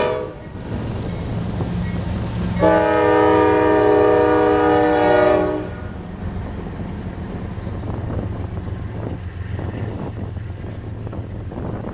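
CSX freight train passing: the diesel locomotives run with a steady low rumble, and a multi-chime air horn sounds one long blast of about three seconds, a couple of seconds in. After the horn stops, tank cars roll past on the rails.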